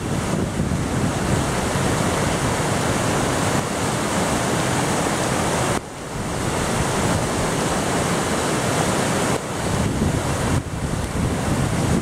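Snowmelt-swollen river rushing through rapids: a loud, steady noise of whitewater, with the level dipping briefly about six seconds in.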